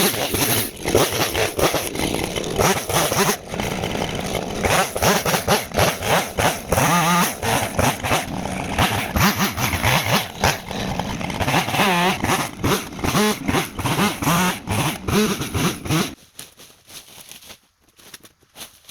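Two-stroke chainsaw running and cutting, its engine revving up and down. About three seconds before the end the engine sound stops abruptly, leaving only quieter scattered knocks.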